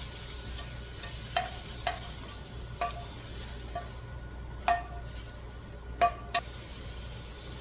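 A utensil clinking against a frying pan about seven times, each clink ringing briefly, over the steady sizzle of chicken frying in the pan.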